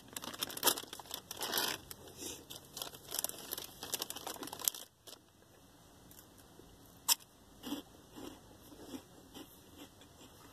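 Crinkling and rustling of a Cheetos Puffs Flamin' Hot foil snack bag being handled for about the first five seconds, then quieter chewing of the cheese puffs, with one sharp click about seven seconds in.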